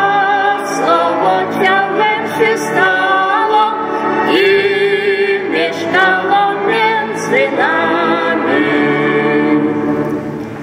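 A woman and a man singing a Polish Christmas carol (kolęda) together, the singing ending near the end.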